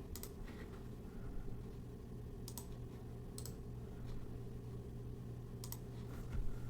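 A few sharp, separate computer mouse clicks, about four spread over several seconds, over a low steady hum.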